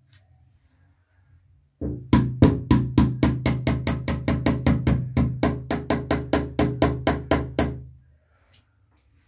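Pliers tapping rapidly on a metal door hinge, about four ringing taps a second for some six seconds, starting about two seconds in: knocking the hinge ring and pin down to seat the door.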